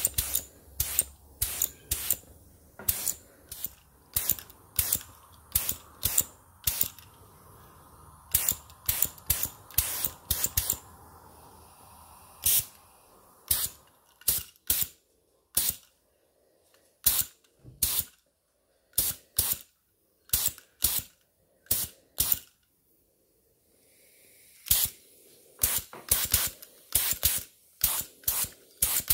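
Short bursts of spray paint hissing from the nozzle one after another, about one or two a second, with a short pause about three-quarters of the way through.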